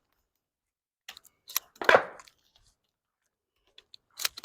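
Crunching footsteps. A few separate steps land about a second or more apart, the loudest about two seconds in.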